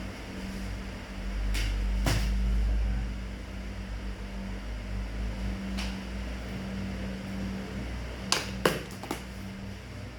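A steady low hum with a few sharp clicks and knocks, a quick cluster of them near the end, typical of objects being handled.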